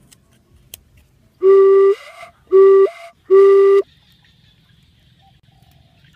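Three short blown notes on a bamboo flute, all at the same steady pitch. The first two jump up in pitch as they end.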